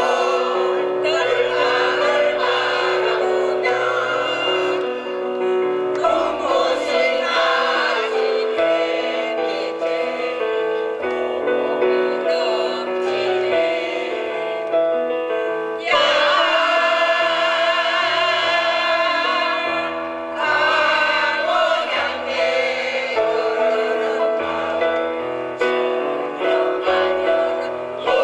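Mixed choir of older men and women singing together in parts over an accompaniment with a moving bass line. The sound grows fuller and louder a little past halfway.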